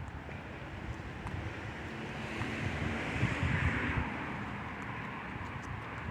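A passing vehicle whose noise swells in the middle and fades, over gusty wind rumbling on the microphone.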